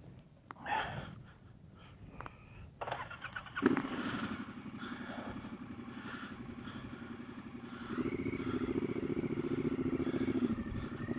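Triumph Scrambler 1200's parallel-twin engine cranked over and starting about three and a half seconds in, after a few light knocks, then idling steadily; it gets louder at about eight seconds.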